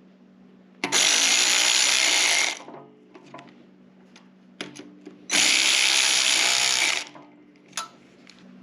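Power drill tightening the mounting bolts of the jack's extension holder, run in two steady bursts of about a second and a half each, with a pause between.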